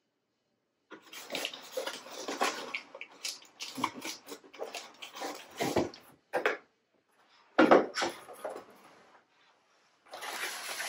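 Cardboard packaging being rustled, scraped and shifted by hand as parts are taken out of the box, with one loud knock about three-quarters of the way through.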